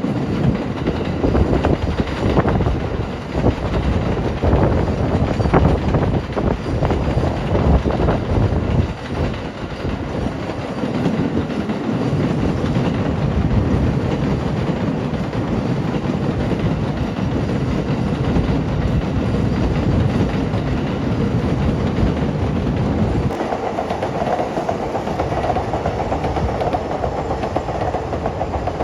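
A train running on rails, with clattering strokes over a heavy rumble for the first ten seconds or so, then a steadier running rumble. About 23 seconds in the sound changes abruptly: the low rumble drops away and a steadier, higher hum remains.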